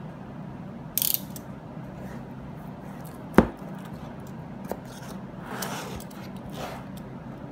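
A shrink-wrapped cardboard box handled and turned over on a table while its plastic film is cut with a utility knife: a short crinkling hiss about a second in, one sharp knock about three and a half seconds in, then soft rustling of the film.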